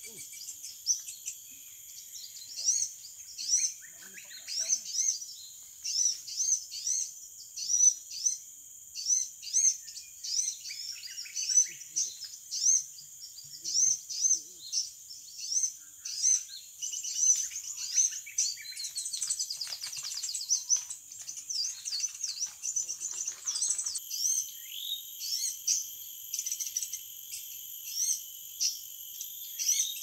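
Small birds chirping: short, high chirps repeating about twice a second without a break, over a steady high insect drone.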